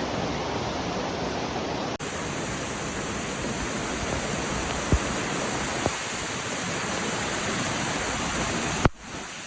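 Rushing floodwater, a steady heavy roar of noise, broken by abrupt edits about two seconds in and near the end, with a couple of brief clicks in the middle.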